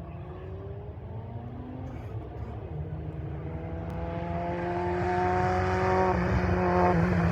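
Classic race car's engine coming closer under acceleration, getting steadily louder. Its pitch rises through a gear in the first seconds, then holds high.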